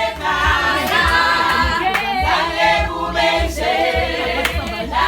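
A group of voices singing together in isiZulu, choir-style, over a low, steady thumping beat.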